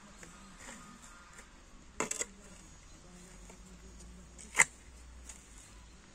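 A shovel blade digging into and tossing garden soil: a short crunchy cluster of strokes about two seconds in, and one sharp strike a couple of seconds later, the loudest sound, over a faint background.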